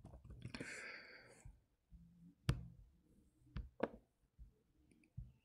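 A soft breath out, then a few single, sharp computer clicks spaced about a second apart.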